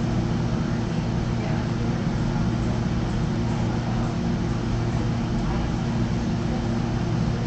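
Steady low drone and rumble of a Caltrain train, heard from inside a passenger car as it moves slowly past the station.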